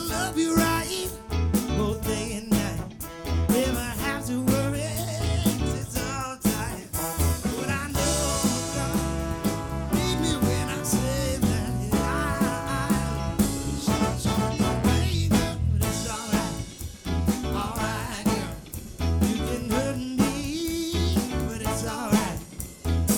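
Live band playing, with drums and bass keeping a steady beat under the other instruments.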